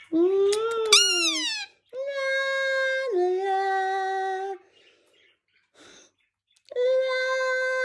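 Indian ringneck parakeet making drawn-out, tonal, voice-like calls: a wavering call with a quick upward sweep about a second in, then a long held note that drops in pitch partway, and after a pause another held note near the end.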